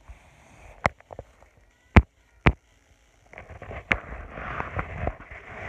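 Phone being handled right at its microphone: four sharp knocks, the loudest about two seconds in, then rubbing and rustling from about three and a half seconds in.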